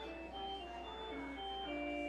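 Church organ playing a slow melody of held, sustained notes that change every half second or so, over a steady low hum.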